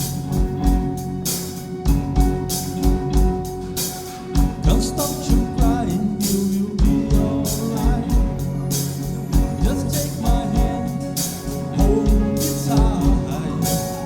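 Live rock band playing a pop ballad: drum kit keeping a steady beat with cymbals, bass and electric guitars with keyboard holding chords, and a wavering melody line over them.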